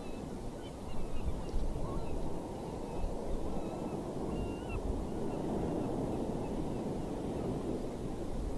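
Steady low rush of wind and sea surf from an outdoor nature recording, with faint short bird calls scattered through it.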